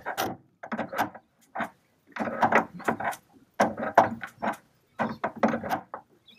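Steel spanner working the retaining nut of a boat steering cable on the outboard's tilt tube: a run of short metallic clicks and rattles in several bursts, stopping near the end, as the nut is done up snug.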